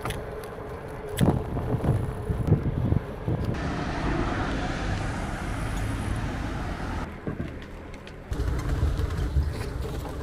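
Outdoor road sound of street traffic and a moving bicycle, with a low rumble, a few sharp knocks in the first three seconds, and abrupt changes where short clips are cut together.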